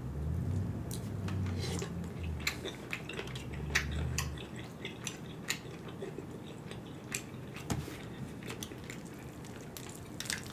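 Close-up eating sounds from a smoked turkey leg mukbang: chewing with many short, sharp mouth clicks and smacks, over a low rumble in roughly the first four seconds.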